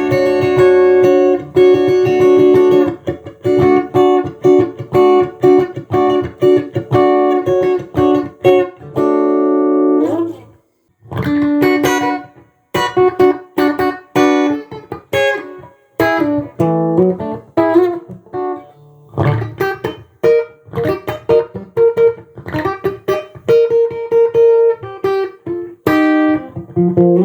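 Tomson Spirit Sounds Stratocaster electric guitar being played: quick runs of picked notes and some held notes, with a few short gaps and a bent note near the end.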